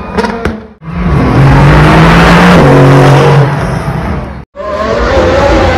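Formula One car engine running loud at high revs as the car runs along the street course, its pitch stepping down once partway through. The sound cuts off abruptly twice and comes back each time.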